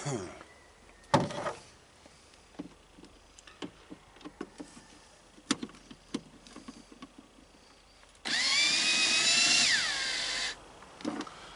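A power drill/driver running for about two seconds as a cover fastener is taken out, its whine dropping in pitch as it winds down and stops. Before it come scattered clicks and a knock as parts and hardware are handled.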